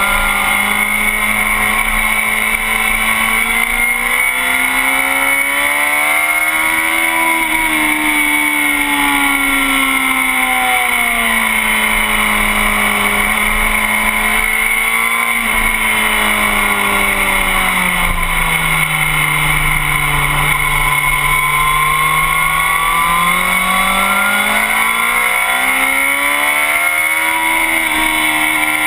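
Sport motorcycle engine running hard, heard from the bike's tail with wind noise rushing over the camera. The engine note rises a few seconds in, falls away, dips lower past the middle, then climbs again near the end as the revs change through the corners.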